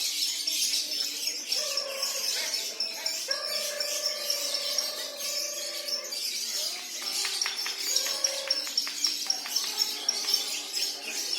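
Lovebirds singing at a bird-song contest: continuous rapid high chirping and trilling, with a quick repeated high note running through it. A steady held lower tone, like music, sounds behind it around the middle.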